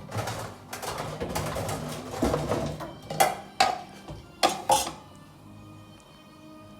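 Metal pot lid being handled and set on a cooking pot: a few seconds of clattering and scraping, then four sharp metal clinks in quick succession.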